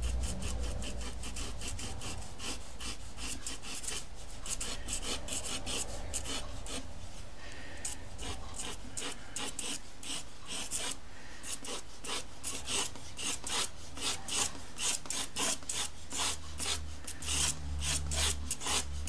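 Dark brown pastel pencil scratching across textured pastel paper in a run of short, rapid strokes. The strokes become more distinct and regular, several a second, in the second half.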